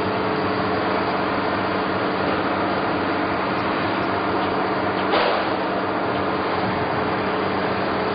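Straight knife blade grinder running, a steady motor hum with hiss above it. A brief louder sound breaks in about five seconds in.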